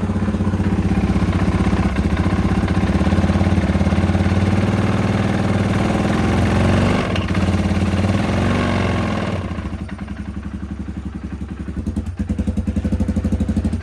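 2016 Polaris Sportsman 570 ATV's single-cylinder engine running with the throttle held open, then dropping back to idle about ten seconds in and picking up again near the end. It does not sound very good at all: the engine has ingested mud and water, and the mechanic suspects a bad crankshaft.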